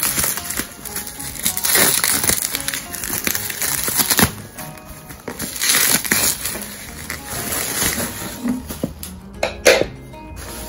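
Plastic bubble wrap crinkling and rustling as it is pulled off a cardboard box, with background music under it. It quietens near the end, with a couple of sharp taps.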